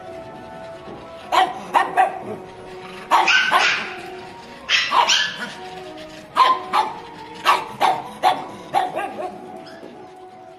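Pugs barking in short clusters of sharp barks, one cluster every second or so, over background music with steady held notes.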